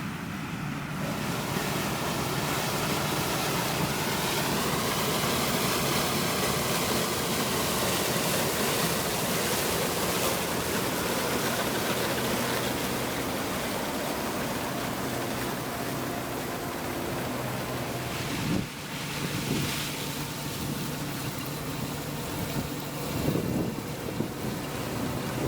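Engine of corn-harvest farm machinery running steadily under load, with a brief rise and fall in pitch early on and an abrupt change in the sound about three-quarters of the way through.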